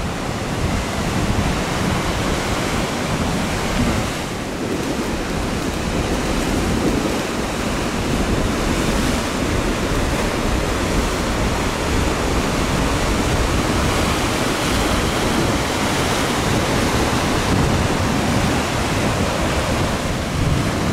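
Ocean surf breaking and washing in a continuous, loud wash of noise, with wind rumbling on the microphone.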